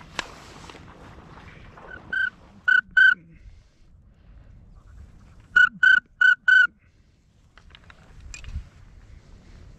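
Duck whistle call blown in short, clear whistled notes: three about two seconds in, then a quicker run of four about six seconds in. A sharp click comes right at the start.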